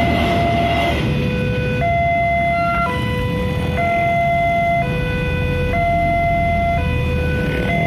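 Railway level-crossing electronic alarm sounding a repeating pattern of steady electronic tones that alternate between two pitch sets, switching about once a second.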